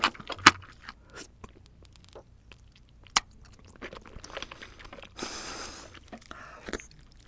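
Close-up eating sounds: crisp crunching bites and chewing, a run of sharp crackles with two loud crunches about half a second and three seconds in, and a short hiss a little after five seconds.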